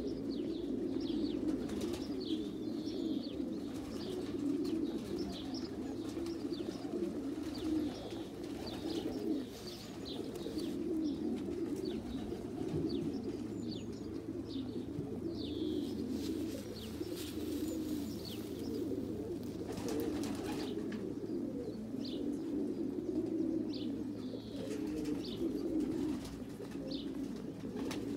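Pigeons cooing continuously in a steady low murmur, with many short high chirps of small birds over it.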